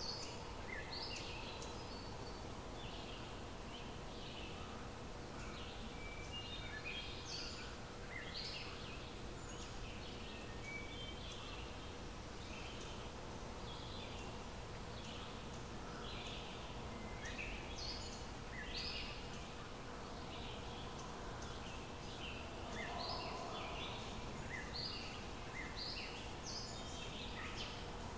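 Songbirds chirping and singing in a steady run of short, high notes, over a low steady outdoor rumble and a faint steady hum.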